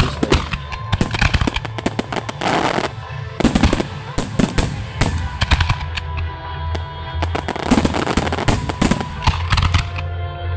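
Fireworks display: aerial shells and fountains going off in many sharp bangs and crackles in quick succession, with music playing under them.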